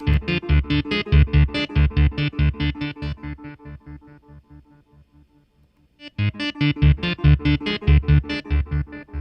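Synthesizer played through an MXR Carbon Copy Mini analog delay pedal: a fast, repeating pattern of notes, about five a second, that dies away over a few seconds and starts again about six seconds in.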